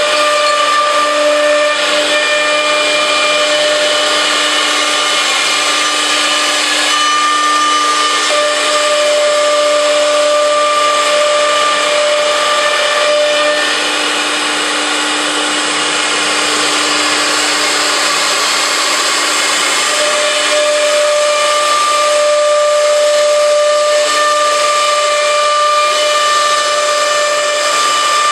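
Four-spindle CNC router running, its spindle bits cutting through a chipboard panel: a steady whine over a hiss of cutting noise, with a second tone that fades in and out twice.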